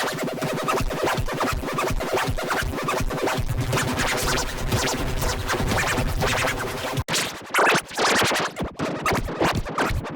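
Sparta-style electronic remix music: a sample chopped into fast stuttering repeats with record-scratch effects. It cuts out for an instant about seven seconds in, then carries on.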